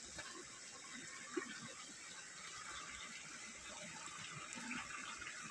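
Shallow stream running over rocks in a small riffle: a steady rushing of water, with one light tap about a second and a half in.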